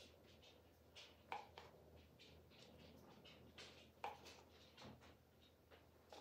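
Faint, scattered scrapes and light taps of a wooden stir stick against the inside of a cup of acrylic paint, a few short strokes over quiet room tone.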